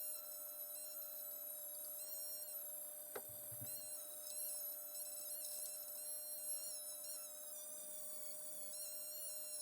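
Background music made of sustained, high-pitched tones, with no speech.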